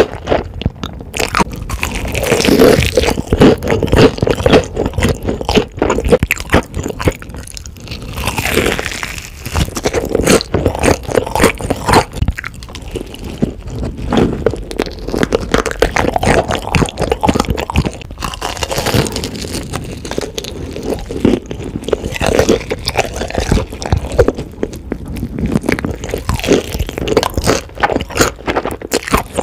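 Close-miked ASMR eating of a crispy fried chicken drumstick: loud, irregular crunching bites through the breaded coating, and chewing.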